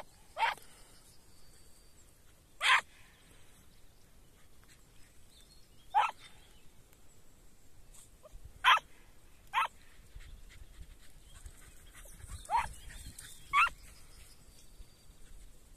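Hare hounds giving short, high yelping barks at irregular intervals, about seven in all, while working a hare's scent.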